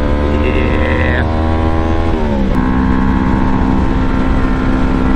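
Yamaha YZF-R3's parallel-twin engine running under way. The revs drop about two seconds in, then hold steady at a lower pitch.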